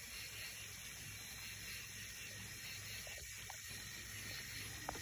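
Faint, steady outdoor background hiss with a few small clicks near the end.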